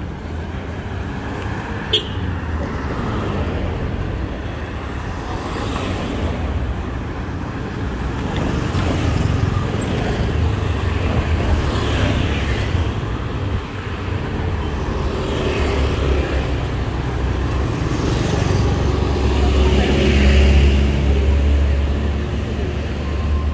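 Busy street ambience: motor traffic running past steadily, with people's voices in the background. A single sharp click comes about two seconds in, and a louder vehicle passes near the end.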